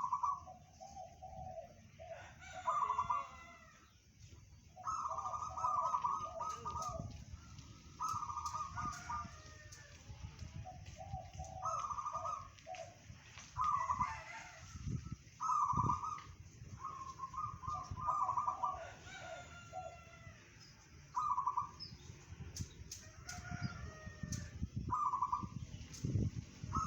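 Zebra dove (perkutut) singing, repeating short cooing phrases: a trill of higher notes with lower coos after them, coming again every two to three seconds. Faint higher calls of other birds are mixed in.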